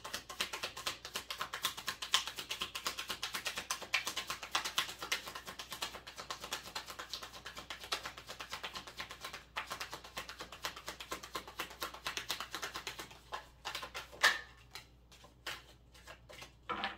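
A deck of tarot cards being shuffled by hand: a fast, steady patter of soft card clicks that thins to a few scattered clicks near the end.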